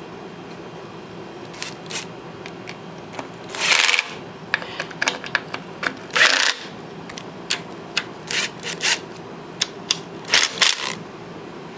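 Cordless power driver running in the bolts of the governor cover on a Ford 134 tractor engine, in a string of short trigger bursts, with longer runs about four seconds in, about six seconds in and near the end.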